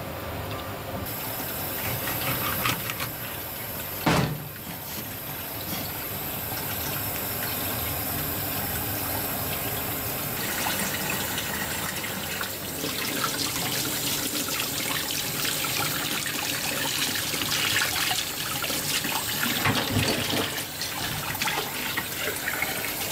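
Steady water running from a tap, brightening about a second in and again near the middle, with a sharp knock on the cutting board about four seconds in.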